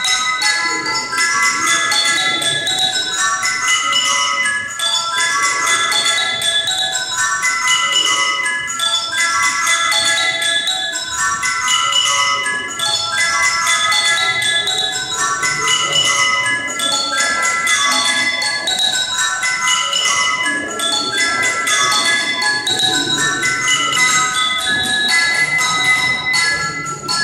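Sound installation of about twenty mechanical strikers, each tapping a small flat plate on its own stand, making a continuous, dense tinkling of many overlapping high ringing tones.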